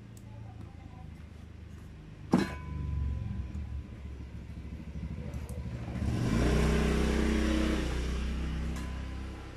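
A motor vehicle passing by. Its engine sound builds up a few seconds in, is loudest past the middle and fades near the end. A single sharp click comes about two seconds in.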